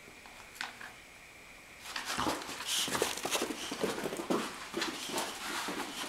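A boxer and a small puppy playing rough, with quick scuffling and scrambling noises that become busy and continuous about two seconds in.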